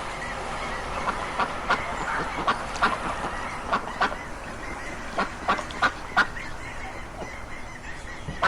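Ducks quacking: a run of many short, sharp quacks at irregular intervals over a steady background hiss.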